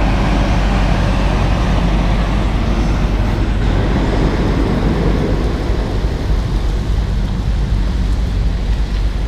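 Motor vehicle engine running steadily with a loud, even rumble and road noise.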